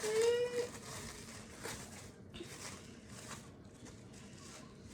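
A young boy's short high-pitched vocal cry at the very start, rising in pitch, then only faint scattered clicks and rustles.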